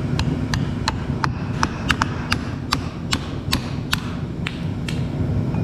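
Hammer striking a steel rod to drive the ball bearing out of the end cover of a Jet 700LL aerator motor: a steady run of sharp metallic taps, about three a second, that stop near the end, over a steady low hum.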